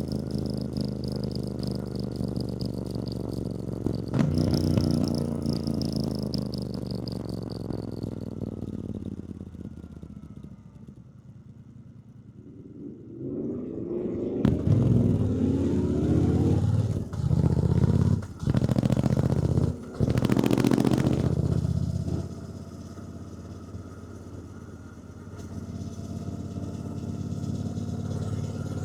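Triumph Bonneville T120's 1200 cc parallel-twin engine, heard from the rider's position. It winds down to a low idle, then pulls away hard in a rising run with about three quick gear changes, and settles into cruising before it picks up again near the end.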